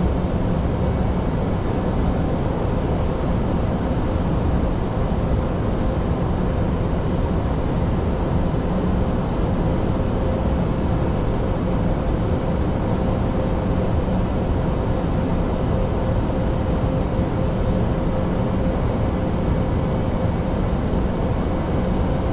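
Steady flight-deck noise of an A320neo in flight: a constant rush of airflow and air conditioning, with a faint steady hum running through it.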